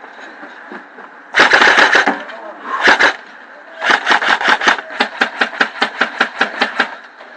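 Airsoft gun firing at close range: a short rapid burst, a brief second burst, then a steady string of quick single shots, about five a second.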